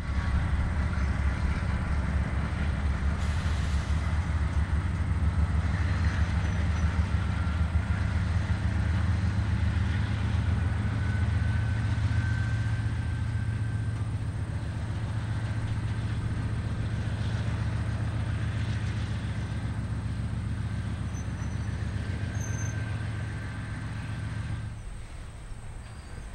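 BNSF diesel locomotives passing under power: a deep, steady engine drone with a thin high whine over it. The drone falls away about a second before the end as the train's covered hoppers roll by.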